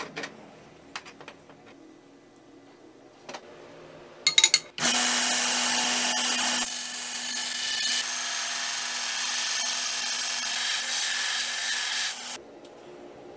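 A few light knocks and clicks, then about five seconds in a belt grinder runs with a steel axe head held against its belt: a loud, steady grinding hiss over a low motor hum. It cuts off suddenly about a second before the end.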